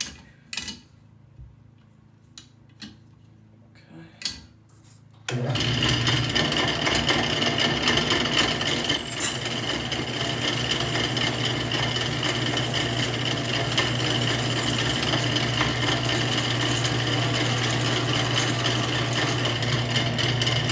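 A drill press starts up about five seconds in and runs steadily with a constant low hum, drilling out a stripped scope-base screw with a 7/64-inch bit. A few light clicks and knocks come before it starts.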